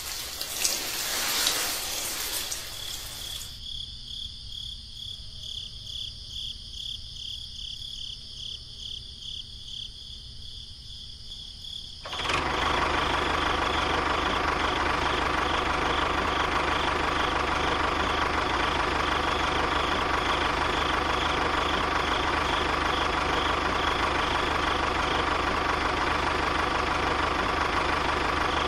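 Steady engine running, like a small tractor idling, that starts suddenly about twelve seconds in and holds. Before it comes a short rushing noise, then a faint rhythmic pulsing.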